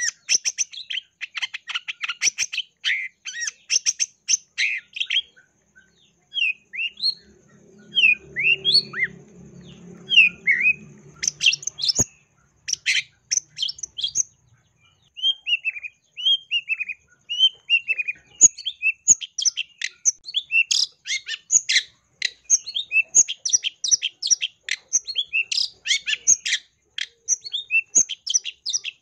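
Long-tailed shrike singing a fast, scratchy chatter of short high notes, broken twice by slower slurred notes that glide downward. It is the shrike's varied song filled with imitated phrases (isian).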